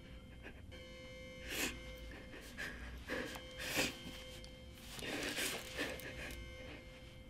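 A young woman crying quietly: about five sniffles and shaky, sobbing breaths, the longest about five seconds in, over a faint steady hum.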